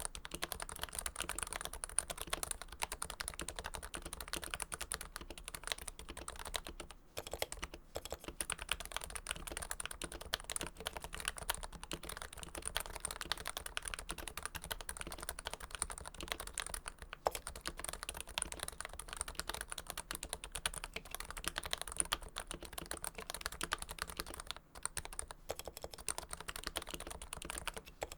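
Steady, dense typing on a Realforce keyboard with Topre switches lubed with Krytox 105, in a first-generation Realforce TKL case fitted with a Realforce Hipro plate. The keystrokes stop briefly a few times: about seven and eight seconds in, and again near the end.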